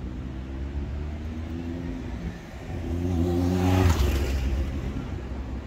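A car driving past, its engine and tyre noise growing louder to a peak about two-thirds of the way through, then fading away.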